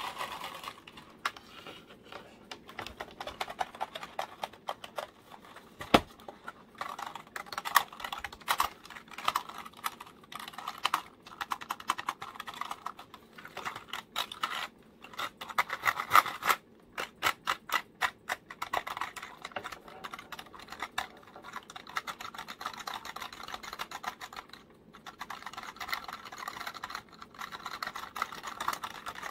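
Plastic keys of a computer keyboard being tapped and pressed rapidly with the fingertips: a dense, uneven stream of clicks, with one sharper knock about six seconds in.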